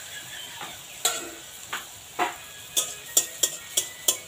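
Jackfruit pitha batter sizzling in hot oil in a karahi while a spatula spoons oil over it. The spatula clicks against the pan about eight times, closer together in the second half.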